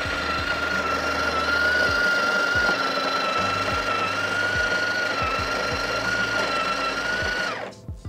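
The built-in conical burr grinder of a Breville Barista Touch Impress espresso machine grinding coffee into the portafilter. It makes a steady motor whine that stops abruptly near the end.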